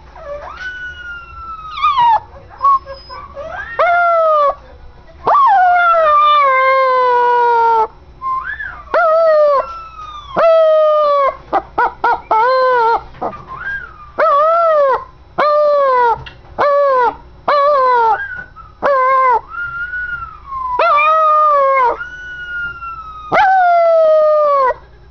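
Eight-month-old puppy howling over and over: a long series of howls, each one to two and a half seconds long, that slide down in pitch, with a quick run of short yelps about halfway through. The howling is set off by a whistle sound.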